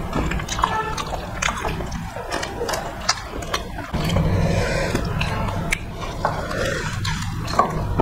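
Close-miked wet eating sounds: chewing and lip smacks, with fingers squishing rice into curry, broken by many short clicks.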